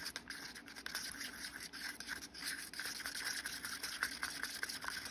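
Thick water-based Resincrete mix being stirred in a cup just after pigment powder was added: a steady scraping and rubbing against the cup, with many small clicks, until it stops abruptly.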